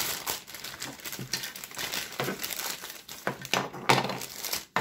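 Thin clear plastic parts bag crinkling irregularly as hands open it and handle it, with a sharper rustle a little before four seconds in.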